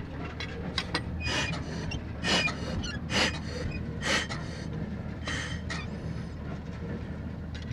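A steady low engine hum in the background, with five short breathy hissing bursts about a second apart in the first part.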